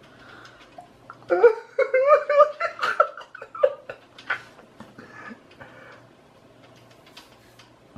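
People laughing hard: a burst of high-pitched laughter starting about a second and a half in and dying away by about four and a half seconds, followed by a few faint clicks.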